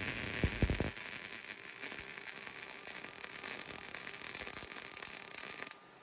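MIG welder laying a bead on steel: a steady crackling, sputtering arc with a few low knocks in the first second, cutting off abruptly near the end as the trigger is released.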